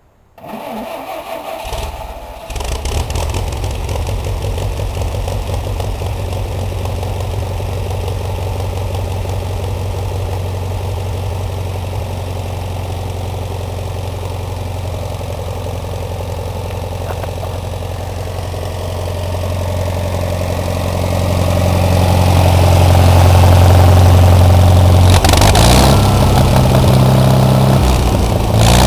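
Wisconsin VG4D air-cooled V4 engine on an old Fitchburg wood chipper, cold-started on its electric starter with weak jumper-cabled batteries after about six months without running. It cranks briefly, catches a couple of seconds in, then runs steadily to warm up, getting louder about twenty seconds in.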